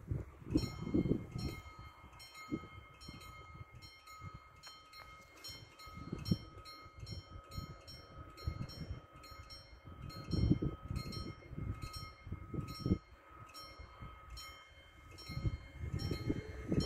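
Level-crossing warning bells, two TD96/2 electronic bell units, ringing steadily at about two strokes a second as the crossing activates. Gusts of wind hit the microphone now and then.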